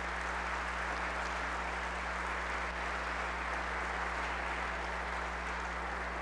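Large seated audience applauding, a steady even clapping that holds at the same level throughout.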